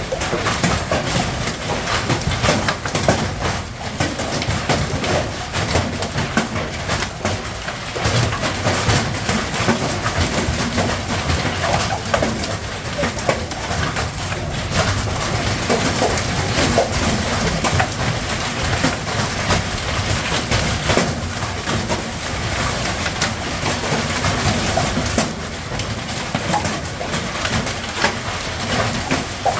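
Light hail falling: a dense, irregular patter of many small hits that keeps up without a break.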